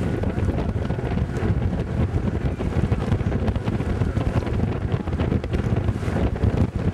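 Wind buffeting the microphone on a moving river boat: a dense, fluttering low rumble that never lets up.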